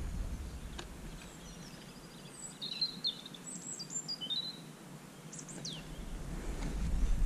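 Small songbirds chirping and trilling in short high phrases, mostly between two and six seconds in. Wind rumbles on the microphone, fading in the middle and rising again near the end.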